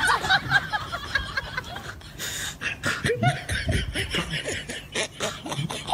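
Quiet, stifled laughter in short broken snickers.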